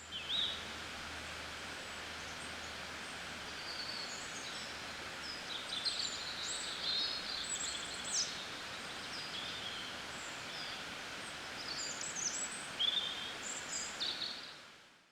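Several birds chirping and singing in short, high calls over a steady outdoor background hiss. The sound fades out near the end.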